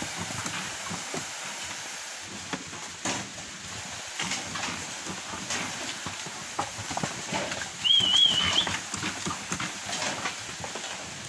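A herd of cattle crowded in a wooden corral, shuffling and knocking against one another and the rails, with scattered hoof clicks and knocks. About eight seconds in, a short, warbling high whistle sounds over them.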